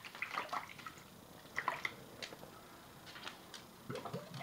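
Water splashing and dripping in a plastic water dish as a cat paws and scoops at it, in several short, irregular bursts.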